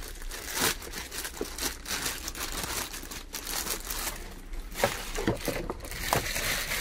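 Plastic wrapping crinkling and rustling in the hands as a liquid CPU cooler's radiator and tubes are unwrapped, in irregular rustles with a few light handling knocks about five seconds in.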